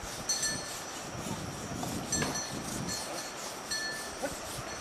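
Short, ringing metallic clinks at the same few pitches, repeating irregularly several times over a steady wash of river water.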